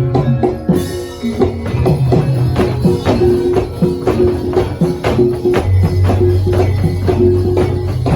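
Live jaranan dance music from a Javanese gamelan-style ensemble: fast, dense drum and percussion strokes over repeated pitched notes, with a low held tone coming in about five and a half seconds in.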